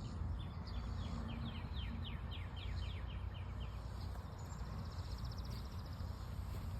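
A songbird singing a quick series of repeated downslurred notes, about four a second, for about three seconds. Then a cicada gives a rapid high-pitched buzz for about two seconds, over a steady low rumble.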